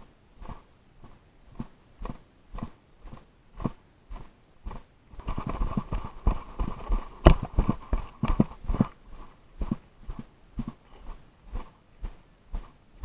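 Footsteps at an even walking pace, about two steps a second, close to the microphone. There is a busier, louder stretch of scuffing and rustle in the middle.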